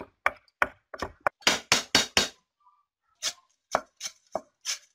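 A large kitchen knife chopping ginger on a thick wooden chopping board: a fast run of sharp strikes, about five a second, then a pause of about a second and a slower handful of strikes near the end.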